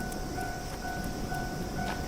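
Japanese railroad crossing warning bell ringing: an electronic ding repeating about twice a second, signalling that a train is approaching. A few sharp clicks come near the end.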